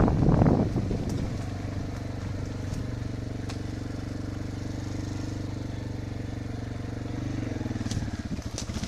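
Enduro motorcycle engine idling steadily after loud riding noise dies away in the first second; the idle note shifts near the end.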